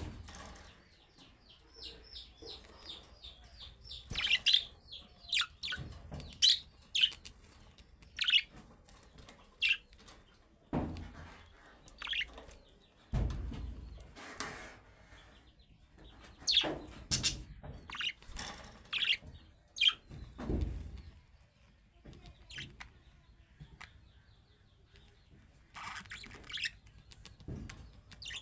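Budgerigars chirping in short, sharp calls, with a quick run of rapidly repeated notes just after the start. A few low thumps sound among the calls.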